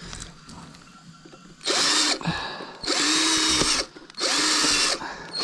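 Power drill running in four short bursts, each under a second, with the motor whine rising as each burst starts; the last burst runs on at the end.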